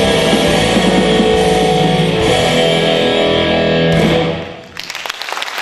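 Live band playing the last bars of a song, the music stopping about four and a half seconds in. Audience applause starts right after.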